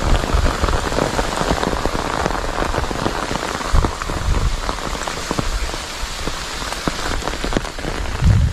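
Steady rain shower, with many small drops tapping on the umbrella held over the microphone.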